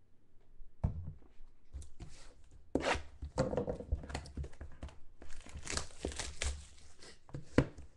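Plastic shrink wrap being torn off a box of trading cards and crumpled in the hands: a long run of crackling and tearing with many sharp ticks, thickest in the second half, and one loud sharp click near the end.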